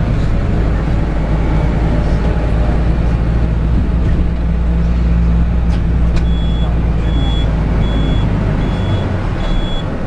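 Engine and road noise inside a moving tour coach: a steady low drone. About six seconds in, a high electronic warning beep starts and repeats about every two-thirds of a second.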